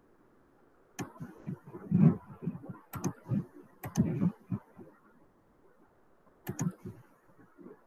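Computer mouse clicking, a few single clicks and quick double clicks, with low soft knocks of handling on the desk between them, picked up by the microphone.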